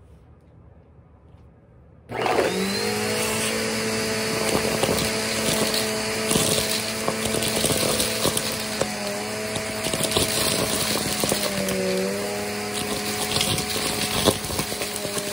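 Vacuum cleaner switched on about two seconds in, then running steadily through a hose nozzle as it sucks up dry macaroni, rubber bands and grit from carpet. Crunching and crackling debris rattles up the hose, and the motor's pitch dips briefly a few times.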